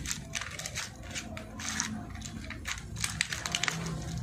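Small metal turbo repair-kit parts clicking and rattling against a clear plastic blister tray as a hand picks through them, with the thin plastic crackling; the clicks come in irregular bursts, thickest a little after the middle.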